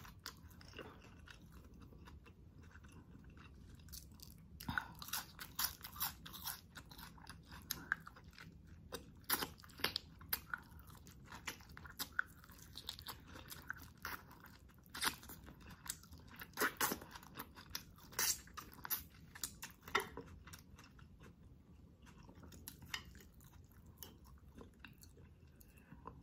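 Close-up chewing and mouth sounds of a person eating chicken adobo: a string of wet smacks and soft crunches, thickest in the middle and thinning out after about 20 seconds.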